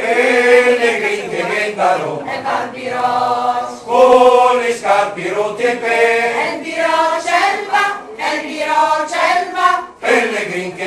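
Mixed choir of men and women singing unaccompanied, all voices coming in together at once, with a short pause for breath about ten seconds in.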